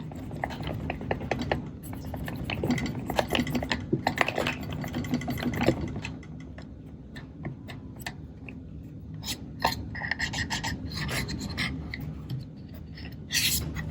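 A cotton swab scrubbed hard back and forth in the small grooves of a plastic camera top, making a scratchy rasping. The scrubbing is strongest for the first half, then turns lighter with scattered small clicks.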